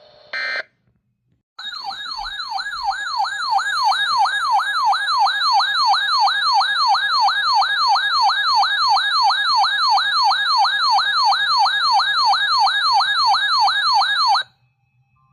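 Electronic alert siren sounding a fast warbling tone that sweeps up and down about three times a second for roughly thirteen seconds, then cuts off abruptly. A short burst of tone comes just before it starts.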